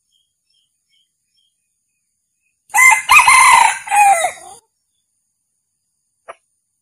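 Male red junglefowl crowing once, about three seconds in: a short crow of under two seconds in three parts, the last one falling in pitch.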